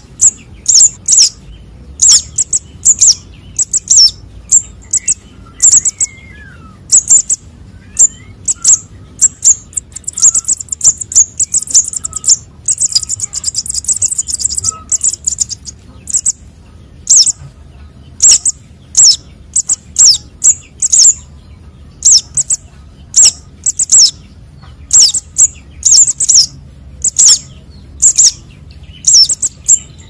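Calls of young sunbirds, played as a lure: loud, short, sharp high chirps, one to three a second in irregular groups, with a denser rapid run from about ten to fifteen seconds in.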